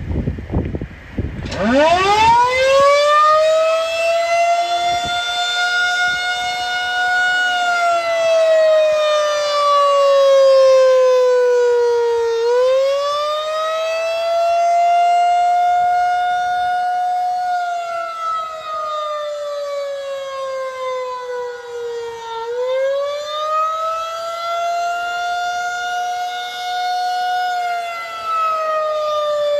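SRNB outdoor tornado warning siren winding up about a second and a half in, then sounding as one loud wailing tone whose pitch slowly sags and climbs back about every ten seconds. This is a scheduled noon test, not a real warning.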